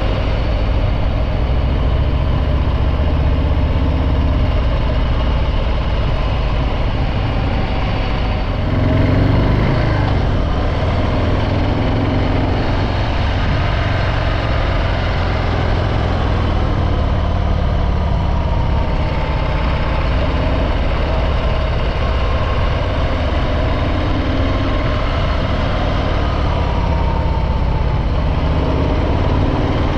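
Harley-Davidson Breakout 114's stock Milwaukee-Eight 114 V-twin running under way, with a brief louder rise in revs about nine seconds in before it settles back.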